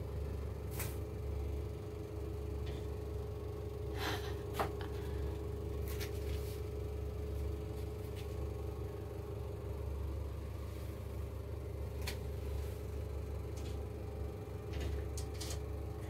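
Steady low mechanical hum with a faint constant tone, and a few soft, short clicks scattered through it.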